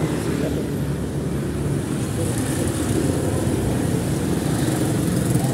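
Street traffic of motor scooters riding past: a steady low engine noise with a general city hum.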